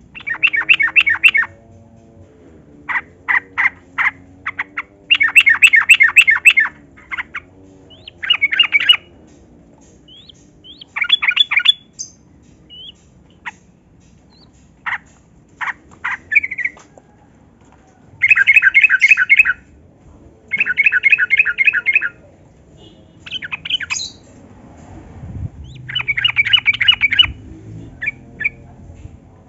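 Yellow-vented bulbul (trucukan) singing: repeated bursts of fast, bubbly chattering notes, each about a second long, with short pauses and a few single notes in between.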